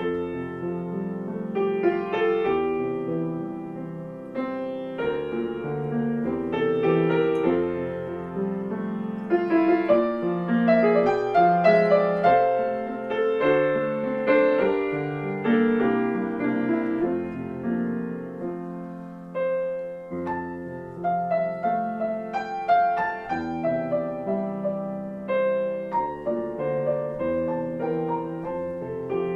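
Background piano music, a flowing melody over chords.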